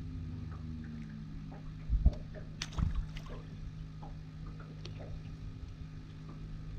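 Low steady hum from the fishing boat, one of its tones sliding down a little in the first second. About two to three seconds in, a couple of low thuds and a sharp click sound on the boat as the just-caught crappie is dealt with.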